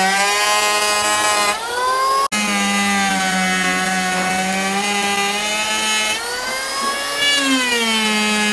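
Electric hand planer running as it shaves a solid lim (ironwood) slab, its motor whine sagging and recovering in pitch under the load of the cut. The sound drops out for an instant about two seconds in.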